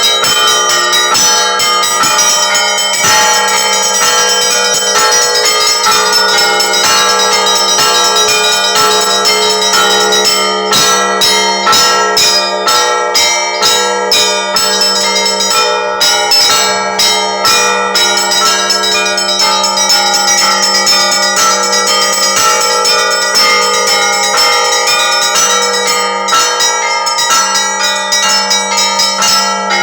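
Russian Orthodox church bells ringing a continuous festive peal: quick, rhythmic strikes of the smaller bells over the steady hum of a large low bell.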